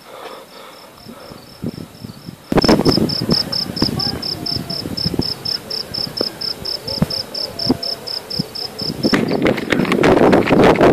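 A cricket chirping steadily, a high pulsed note about five times a second. From about two and a half seconds in it is joined by loud irregular rustling and knocks, which grow heavier near the end.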